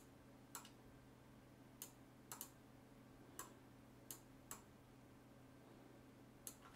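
Faint computer mouse clicks, about nine scattered over several seconds, two of them in a quick pair, over a low steady hum.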